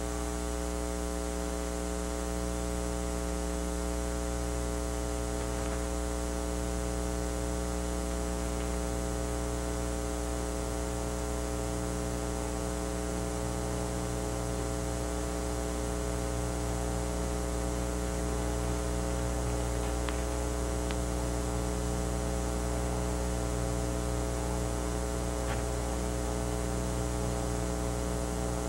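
A steady electrical hum with a buzz of many overtones, unchanging in pitch and level throughout.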